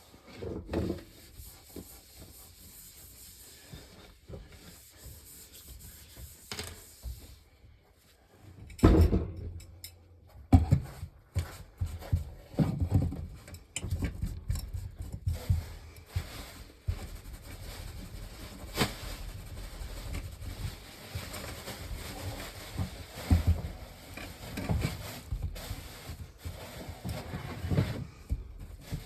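Irregular knocks, thumps and rubbing of objects being handled, with the sharpest knocks about 9 and 10 seconds in.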